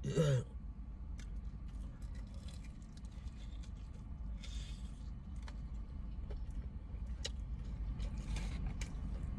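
Fried chicken being pulled apart and bitten into, with a crunchy bite about four and a half seconds in, then chewing and small clicks and scrapes, over a steady low hum in a car cabin.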